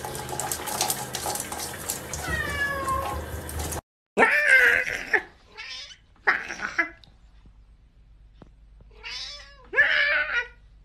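Domestic cat meowing: a series of loud, drawn-out meows, each about half a second to a second long and falling in pitch. The first few seconds carry a steady hiss with one softer falling meow; a brief silence then comes at a cut.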